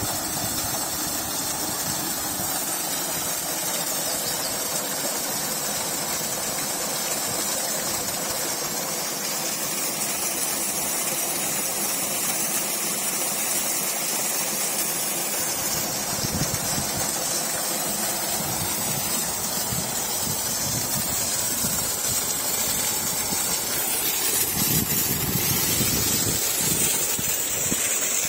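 Steady rush and splash of water gushing from a 7.5 HP solar pump's outlet pipe into a pond. Low rumbling joins in from about halfway and grows near the end.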